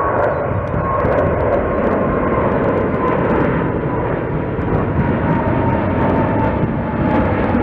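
Jet engines of a twin-engine wide-body airliner, a Boeing 777, climbing out on departure. The rumble is loud and steady, and a faint whine near the middle drops slowly in pitch as it goes.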